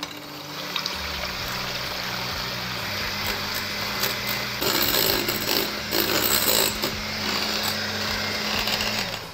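Electric hand mixer running steadily, its beaters whisking egg whites in a glass bowl to stiff peaks; it switches off just before the end.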